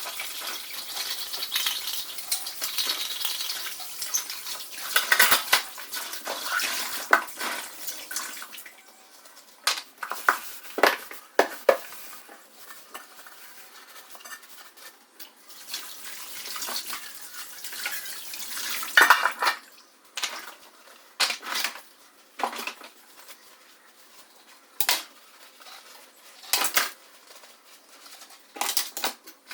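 Dishes and containers clinking and knocking as they are handled, some knocks louder than others. A steady hiss runs under them for the first eight seconds or so.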